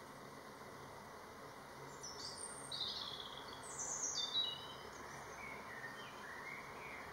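Songbirds singing in woodland: a bright, high phrase of quick notes stepping down in pitch from about two to four and a half seconds in, with softer, lower chirps near the end, over a steady background hiss.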